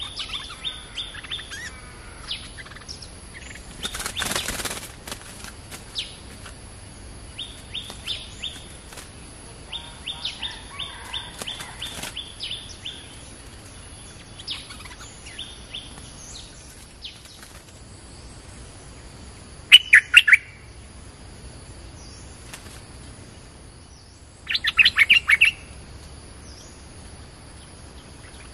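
Stripe-throated bulbul calling: runs of quick, high, repeated notes. Two loud bursts of harsh, chattering notes come about 20 and 25 seconds in.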